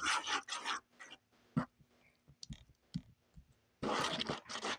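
Hands kneading sticky glue-based butter slime just sprayed with activator: squishing, scraping noise in a burst at the start and again near the end, with a few small sticky clicks between.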